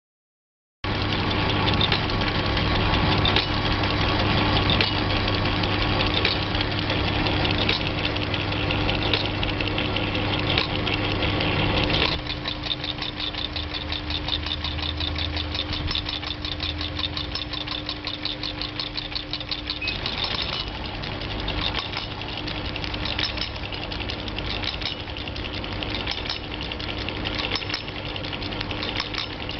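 Venus VP-380PR two-needle pleating sewing machine starting up and running steadily, its needles stitching in a fast, even ticking over a constant motor hum. About twelve seconds in it drops to a quieter run with the rapid ticking more distinct, and it changes again near twenty seconds.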